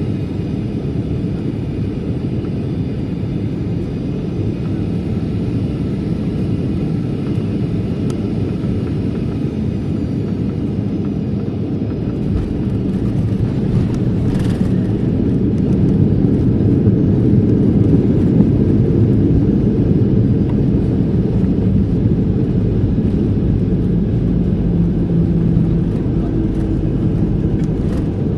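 Steady low rumble of a Boeing 737-800's CFM56 engines and airflow heard inside the cabin during landing, growing louder about halfway through.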